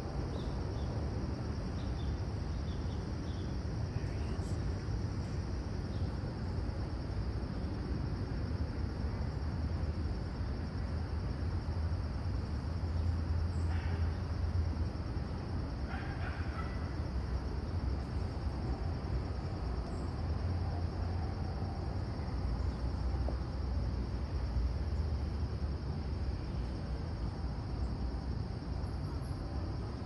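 Steady low outdoor rumble, with a few faint short bird calls about halfway through.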